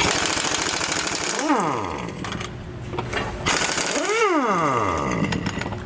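A 1-inch-drive pneumatic impact wrench hammering a tight, rust-seized leaf-spring U-bolt nut off, in two runs. After the first run, at about a second and a half, the air motor's pitch falls as it spins down. In the second run the pitch rises as the nut breaks free and spins, then falls away as the trigger is let go.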